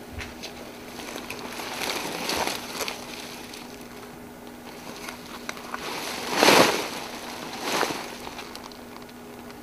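A large papery prop snakeskin crinkling and rustling as it is lifted and dragged over dry leaves, in several swells with small crackles, the loudest about six and a half seconds in.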